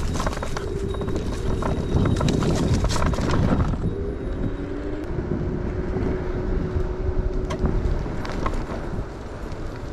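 Ride on a Bird electric scooter: wind rumbling on the microphone, clattering over bumps, and a faint steady whine from the scooter's electric motor. The rumble and clatter are heaviest for about the first four seconds, then ease.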